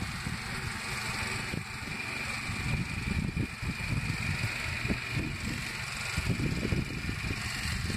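Briggs & Stratton lawnmower engine running steadily, heard at a distance, on a home-built radio-controlled mower.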